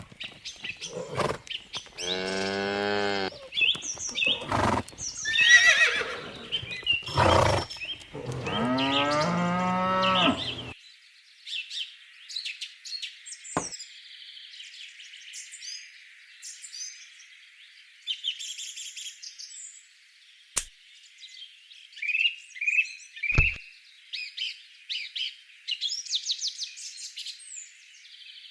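Cattle mooing, two long drawn-out moos among other shorter calls, followed by birds chirping with a few sharp clicks.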